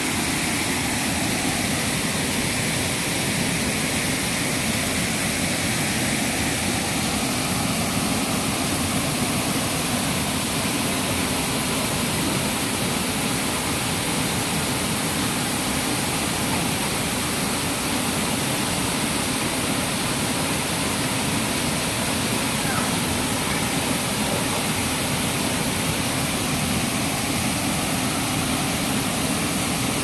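Waterfall rushing steadily: an even wash of water noise that doesn't let up.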